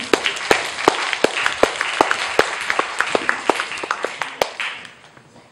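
Audience applauding, dense clapping that thins and dies away near the end.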